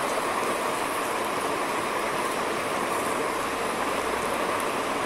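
Bitter gourd rounds frying in oil in a kadai, a steady sizzle while a steel slotted spatula stirs them through the ground coconut masala.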